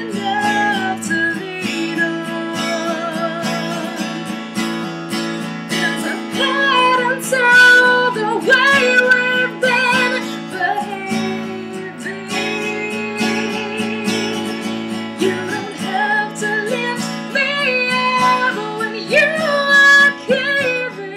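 A woman singing a wavering melody over a strummed acoustic guitar.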